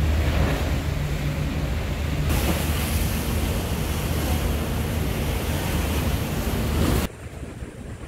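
Rough, choppy seawater rushing and churning beside a ferry, over a steady low rumble of the ship's engine, with wind buffeting the microphone. The sound changes suddenly about two seconds in and drops quieter about a second before the end, where the footage cuts.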